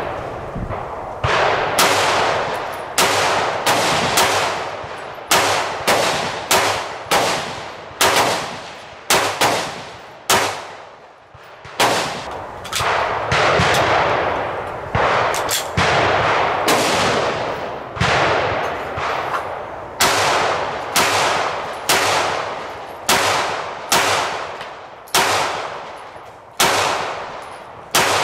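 Firearms fired in a steady string of single shots at irregular spacing, roughly one every half second to second, each shot ringing out with a decaying echo; there is a brief pause about ten seconds in before the shooting resumes.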